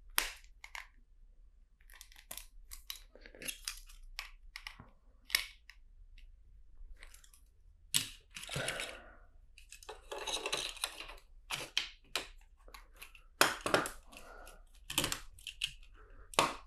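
Hands handling plastic LEGO bricks and track pieces: irregular small clicks, clacks and rustling, the densest rustle about halfway through.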